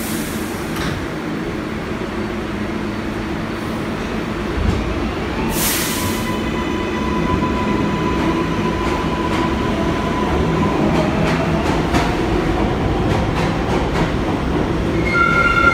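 R62A subway train rumbling at the station platform, with a short burst of air hiss about five and a half seconds in and a whine that holds and then shifts in pitch. A chime sounds near the end.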